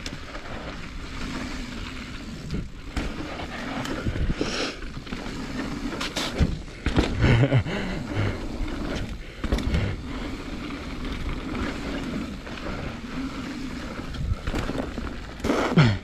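Transition Patrol mountain bike riding down a rough dirt trail: a steady rumble of tyres rolling over dirt and roots, with irregular clunks and rattles from the bike over bumps. Near the end a brief squeal drops in pitch.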